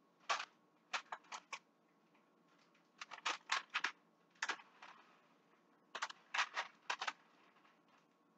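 Short, sharp handling noises at the frying pan as cheese is added to an omelette, coming in four quick clusters of a few strokes each.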